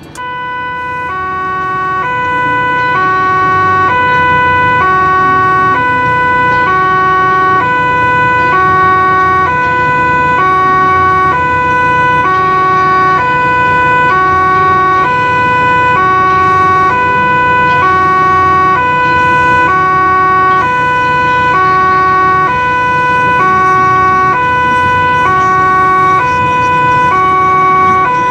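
Fire truck's two-tone siren alternating steadily between a high and a low note, each held for about three quarters of a second, heard from inside the truck's cab over a low vehicle rumble.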